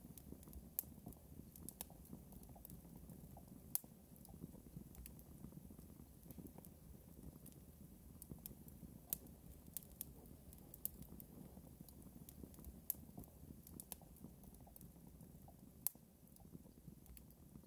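Near silence: a faint low hum with small sharp clicks scattered irregularly through it, a handful of them louder than the rest.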